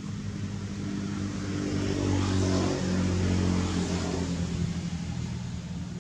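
A vehicle engine humming, growing louder about two seconds in and easing off again near the end.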